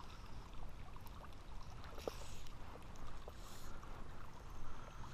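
Small stream running steadily under a low rumble, with scattered faint clicks and two short hisses, about two and three and a half seconds in.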